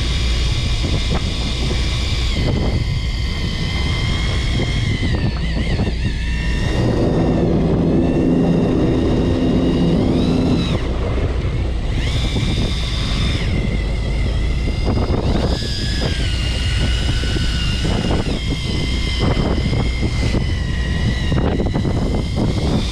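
Fishing boat's engine running steadily, with a high motor whine over it that shifts up and down in pitch several times.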